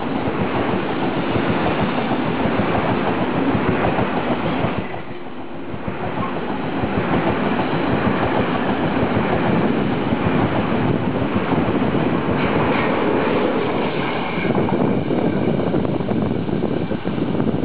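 Push-pull Tze-Chiang express (TRA E1000 series) rolling past, its carriages clattering on the rails, then running away round the curve. Thin high wheel squeal in the later seconds.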